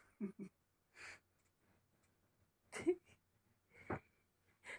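Stifled laughter from a person close to the microphone: a few short breathy exhales and snorts with pauses between them, the loudest a little before three seconds in.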